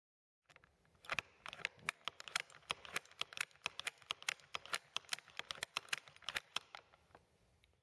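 Open-end ratchet spanner working a hex fitting, its ratchet clicking in quick, uneven runs of roughly four clicks a second. The clicking starts about half a second in and stops shortly before the end.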